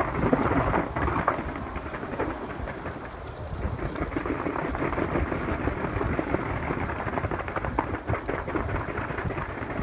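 Distant fireworks display: a dense, continuous crackle of many small bursts over a low rumble of booms.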